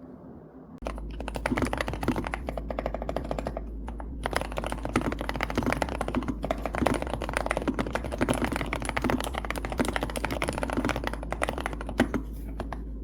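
Typing on a TNT TX108 mechanical keyboard with HMX Sakura silent linear switches and PBT keycaps: a fast, continuous run of keystrokes that starts just under a second in, with a brief pause about four seconds in.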